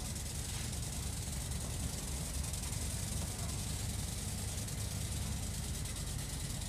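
Steady outdoor background noise: a low, uneven rumble with a hiss over it.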